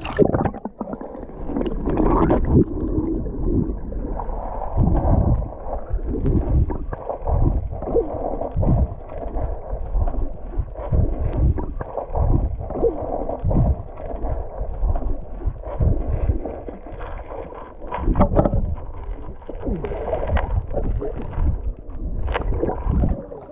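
Muffled underwater sloshing and gurgling picked up by an action camera held below the surface, with irregular low thumps as a dog paddles and wades right beside it.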